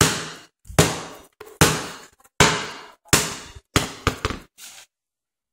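Basketball dribbled on a hardwood floor: a bounce about every 0.8 seconds, each with a short ringing decay, then a few quicker, softer bounces before it stops.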